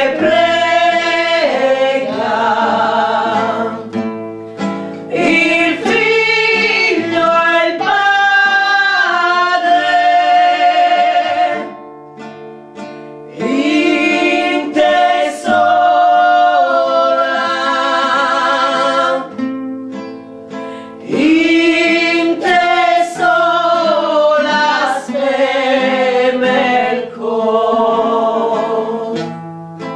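A devotional song: singing over acoustic guitar accompaniment, in phrases with short breaks between them.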